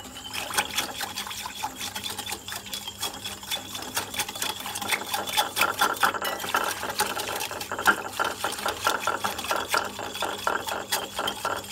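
Wire whisk beating a thin liquid cake batter in a glass bowl: quick, steady, rhythmic clinking of the wires against the glass with a wet sloshing.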